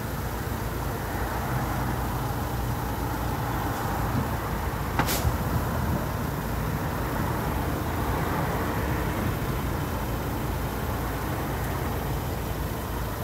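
Automatic car-wash gantry running empty: two tall vertical rotary brushes spinning with water spraying, over a steady mechanical hum. A short sharp click about five seconds in.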